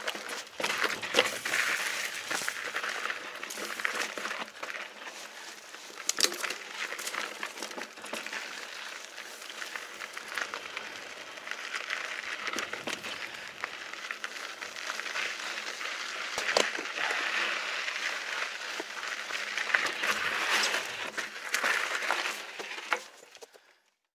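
Mountain bike riding over rough granite rock and grit: a steady gritty crunch from the tyres with scattered sharp knocks and rattles from the bike. The sound cuts off suddenly near the end.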